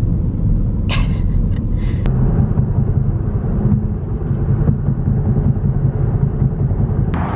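Steady low rumble of road and engine noise inside a car's cabin while driving at motorway speed.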